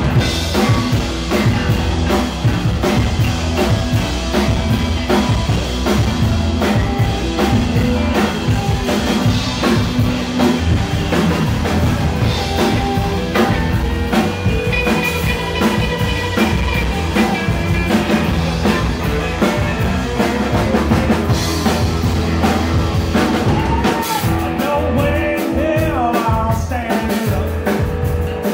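Live blues-rock band playing loudly with two electric guitars, electric bass and drum kit on a steady beat. Toward the end the harmonica player has his harp cupped to the microphone.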